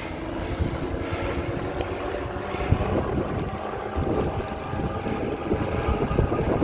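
Wind rushing and buffeting over the microphone of a moving e-bike, with a steady faint whine from the bike's motor and tyre rumble underneath.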